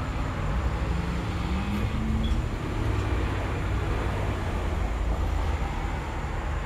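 Steady low background rumble, with a faint tone rising slightly between about one and two and a half seconds in.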